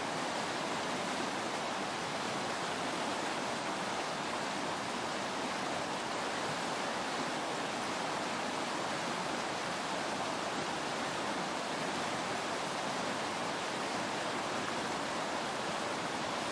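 Fast-flowing river rushing steadily over rocky rapids.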